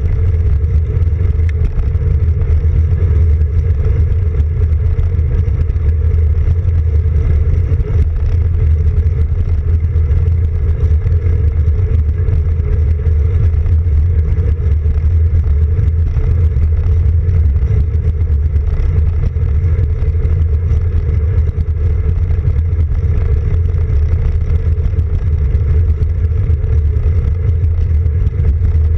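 Wind on a handlebar-mounted camera's microphone and tyre rumble from a road bike rolling on a paved path: a steady, loud low rumble with no breaks.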